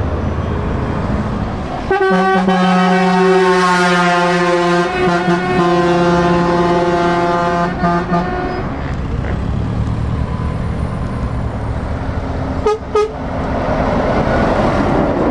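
Trucks and cars passing on a road, engines and tyres rumbling, while a truck air horn sounds one long blast of about six seconds starting about two seconds in. Two short horn toots follow near the end.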